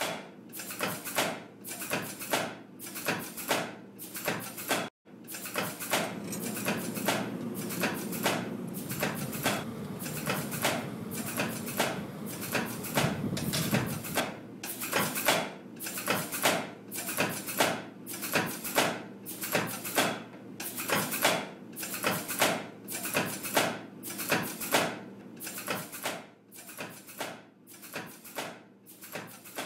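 Hammer blows on metal in a steady rhythm of about one and a half strikes a second. For several seconds near the middle a low steady machine hum runs under them. The sound breaks off for a moment about five seconds in.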